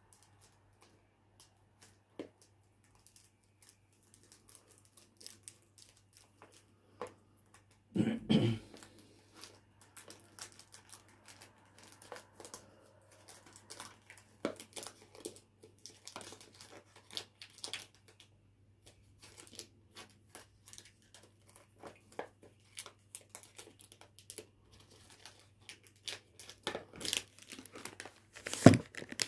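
Cellophane wrap being torn and crinkled off a sealed perfume box, in scattered crackles, with a louder handling burst about eight seconds in and denser crackling near the end. A faint steady low hum sits underneath.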